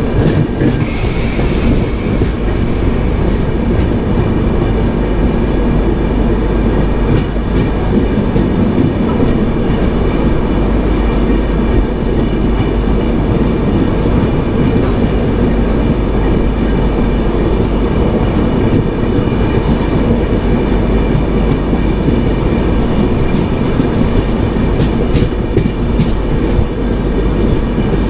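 Passenger train running, heard from on board: a steady rumble of wheels on track, with occasional clicks from the rails and a brief hiss about a second in.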